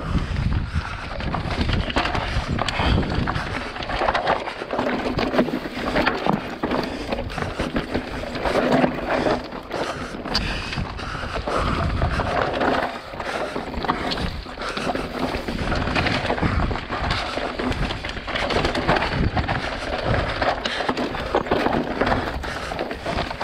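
Mountain bike descending a rocky, loose dirt trail: knobby tyres crunching and skittering over stones, with the bike rattling over each bump in a steady stream of clatter. The camera is held in the rider's mouth, so jolts and wind come through close and uneven.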